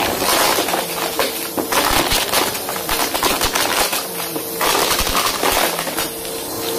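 Bissell upright vacuum cleaner running over carpet, sucking up crunchy debris with many sharp crackles and clicks over its steady motor whine.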